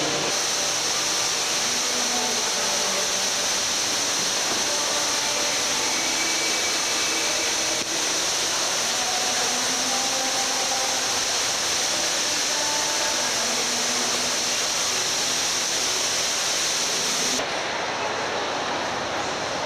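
Steady rushing of falling water from artificial waterfalls, with a faint murmur of distant crowd voices. The hiss drops away suddenly near the end, leaving the crowd din.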